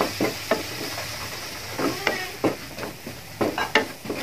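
Spatula stirring and scraping onion masala around a frying pan, in irregular strokes about twice a second over a faint sizzle.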